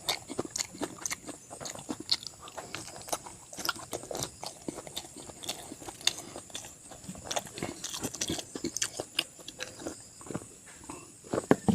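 Close-miked chewing and biting of pork curry with rice: a steady run of irregular mouth clicks, smacks and crunches.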